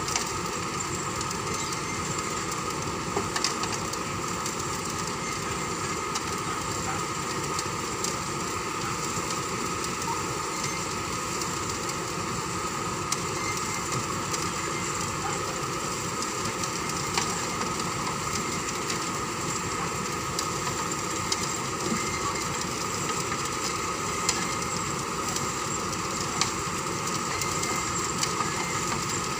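Kobelco hydraulic excavator's diesel engine running steadily, with scattered sharp clicks over the constant machine noise.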